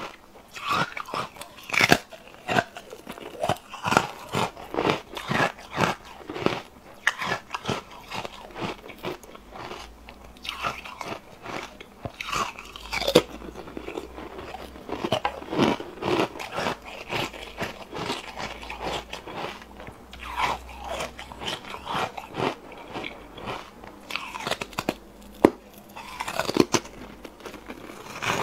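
Carbonated ice being bitten and chewed close to a clip-on microphone: irregular sharp crunches as the porous ice breaks between the teeth.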